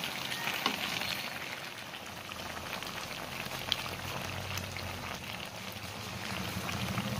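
Coconut-milk stew of vegetables and shrimp (ginataang gulay na may hipon) simmering in a pan: a steady bubbling, crackling hiss with a couple of sharper pops.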